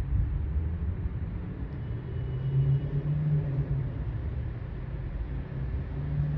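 Low, uneven rumble of distant engines, with a hum that swells in the middle and again near the end.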